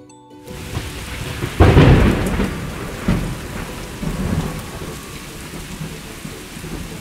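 Thunderstorm: steady rain with a loud clap of thunder about a second and a half in, followed by further rumbles that slowly die away.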